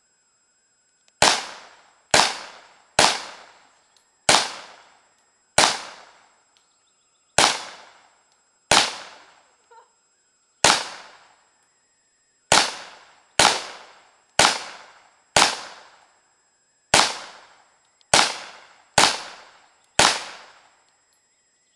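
Thompson submachine gun fired in single shots, about sixteen sharp cracks spaced from under a second to two seconds apart, each fading away over about half a second.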